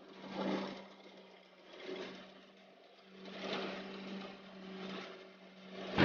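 Faint, steady low hum of a distant rice harvesting machine's engine, with a rushing noise that swells and fades several times.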